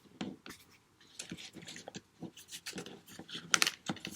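Plastic sheet-mask packets being handled, giving a string of irregular short crackles and rustles.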